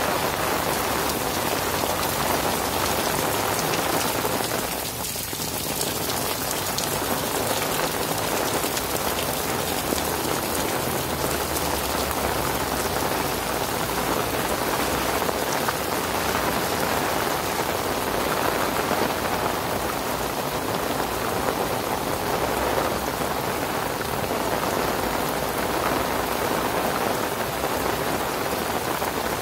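Heavy rain falling steadily on paving, a pond and foliage, an even hiss that dips briefly about five seconds in.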